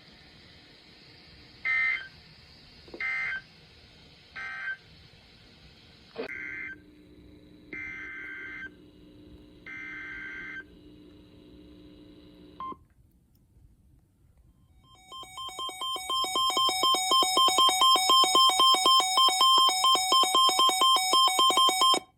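Emergency Alert System SAME data bursts: three short end-of-message bursts of screechy digital data, then, after a cut, three longer header bursts. After a pause of about two seconds, the two-tone EAS attention signal fades in and holds loud with a rapid stutter for about six seconds, then cuts off sharply.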